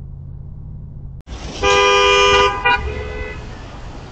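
Vehicle engine hum that cuts off about a second in, followed by a car horn honking once for almost a second, then a brief second toot, over steady street traffic noise.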